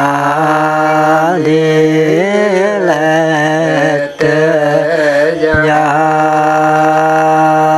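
A man's voice chanting a Karen poem in long, held notes. The pitch bends and wavers briefly about two seconds in, with short breaths between phrases.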